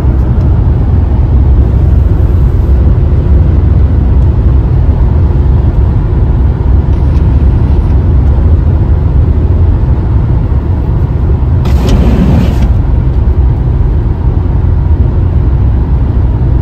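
Toyota car cruising at highway speed, heard from inside the cabin: a steady, loud low rumble of road, engine and wind noise. A brief rushing noise comes about twelve seconds in.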